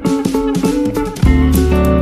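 Background music: guitar picking a melody, with a bass line joining about a second in.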